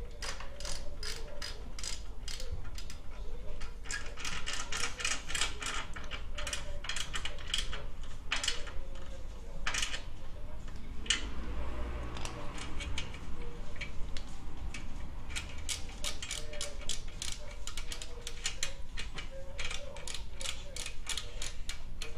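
Socket ratchet wrench clicking in fast runs as a muffler mounting bolt is turned, with short pauses between runs and a couple of louder knocks near the middle.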